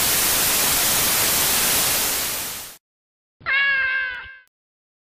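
Television static hiss that cuts off suddenly, followed after a short gap by a single cat meow lasting about a second.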